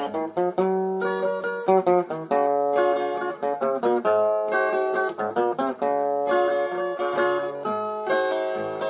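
Instrumental passage of a Brazilian romantic song: a plucked acoustic string instrument plays a melody of quickly changing notes between the sung verses.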